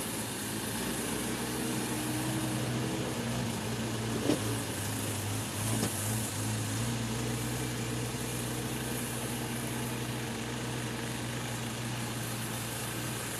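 Excavator's diesel engine idling steadily, with a short sharp knock about four seconds in.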